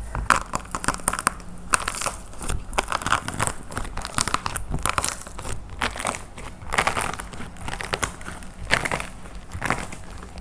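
Painted plaster clay being crushed by hand, cracking and crumbling in dense, irregular clusters of sharp crackles.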